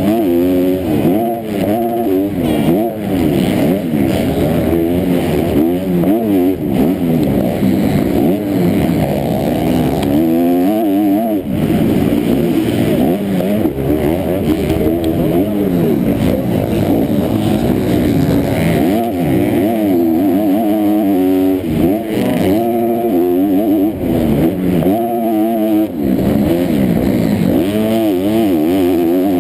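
Motocross bike engine revving hard and shutting off again and again, its pitch climbing and dropping every second or so, picked up by a helmet-mounted camera.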